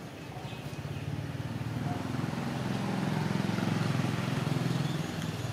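A motor vehicle engine passing by: a low rumble that swells over a few seconds and begins to fade near the end.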